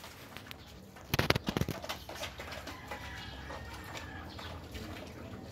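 A dog splashing in a tub of water with its front paws and muzzle: a quick run of loud splashes about a second in, then lighter, irregular sloshing.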